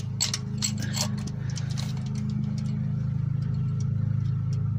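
Light metallic clicks and clinks of a GM 2.2L Ecotec's lower timing chain being handled and fed around its sprockets, busiest in the first second or so, over a steady low hum.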